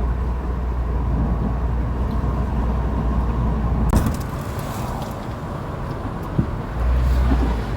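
Car driving, a steady engine and road rumble; the low rumble drops away about four seconds in and comes back near the end.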